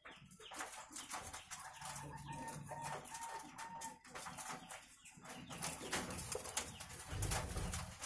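Ringneck (Barbary) doves in an aviary, cooing and calling, with low coos about two seconds in and again near the end, amid scattered clicks and rustling.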